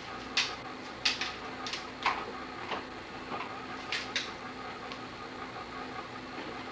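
A string of sharp clicks and clatters, like objects being knocked about, over the first four seconds or so, over a steady electrical hum with a faint tone.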